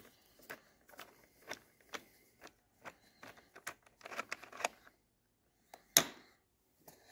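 Socket wrench with a 10 mm socket and extension clicking as it unscrews a bolt, about two clicks a second with a quicker run of clicks around four seconds in. A sharper single knock comes about six seconds in.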